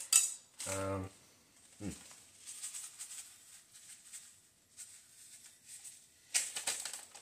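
Plastic bag of panko breadcrumbs crinkling and rustling as crumbs are shaken out over a glass bowl of ground beef, with light scattered pattering of crumbs. A short hummed voice sound comes about a second in.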